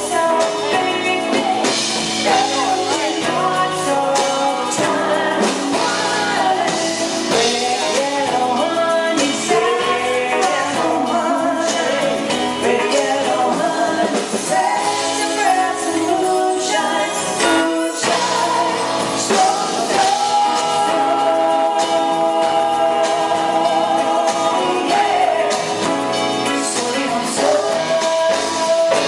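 Live pop-soul band playing with a woman singing lead, including one long held note a little past the middle.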